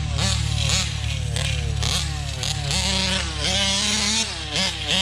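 Two-stroke gas big-bore engine of a 1/5-scale RC truck, revving hard and dropping back about twice a second under repeated full-throttle bursts. It is a brand-new engine still being broken in.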